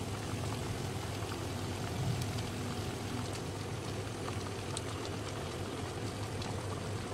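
A pot of stew simmering on a stove: a steady low hum and hiss, with a few faint light clicks as a plastic spoon stirs it.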